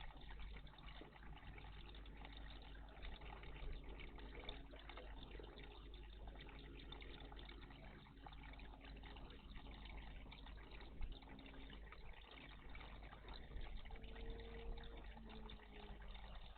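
Faint, continuous trickling and splashing of water in a garden bird bath, with small irregular splashes.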